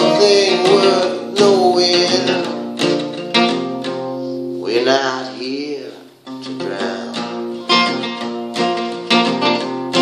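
Acoustic guitar with a capo strummed in a steady rhythm, with a man singing long, wavering notes over it near the start and around the middle.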